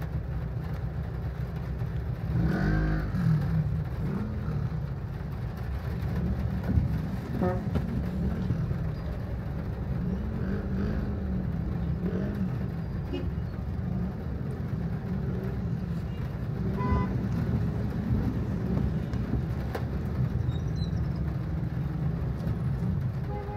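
Road traffic: a steady low rumble of car engines, with a louder passing vehicle about three seconds in and a short pitched sound near the end.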